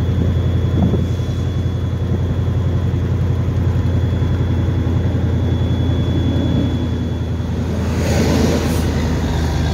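1985 Mustang GT's 5.0-litre V8 running steadily at low cruising speed, heard from the car with road noise. There is a brief rush of louder noise about eight seconds in.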